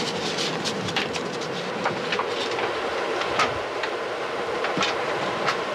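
Passenger train running at speed, heard from inside the carriage: a steady rumble with irregular clicks and rattles from the wheels and coachwork.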